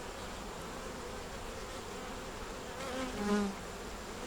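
Honey bees buzzing steadily around an open hive as the frames are inspected, the hum wavering in pitch, with a short louder swell about three seconds in.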